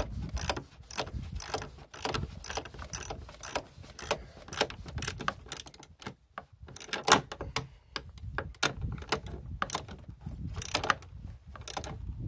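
Hand ratchet clicking in short runs as a bolt holding the snowmobile's plastic console is tightened.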